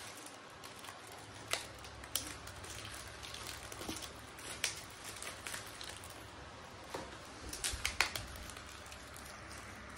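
Thin plastic wrapping crinkling and rustling as it is peeled off a small slime container by hand, with scattered sharp crackles and a quick cluster of them near the end.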